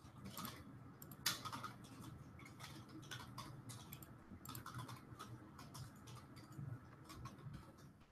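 Faint, irregular clicking of computer keyboard keys being typed, several strokes a second.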